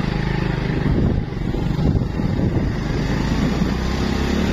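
Small motorcycle engine running steadily while riding along a dirt track, with rough road and wind noise over it.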